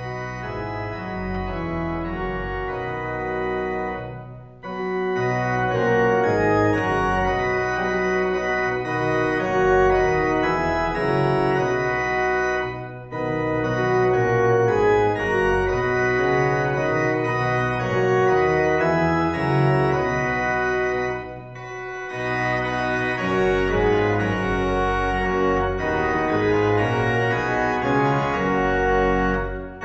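Church organ playing sustained chords in phrases about eight seconds long, each ending with a brief pause.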